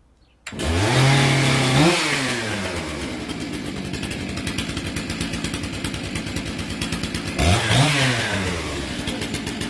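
Stihl 661 two-stroke chainsaw cutting in abruptly and revving up, holding briefly, then dropping back to a steady run. It is revved once more briefly near the end.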